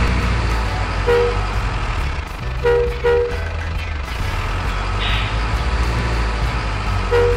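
Radio-controlled truck's sound unit playing a steady simulated diesel engine rumble as the truck drives, with short two-tone beeps about a second in, twice around three seconds and once near the end, and a brief air-brake hiss about five seconds in.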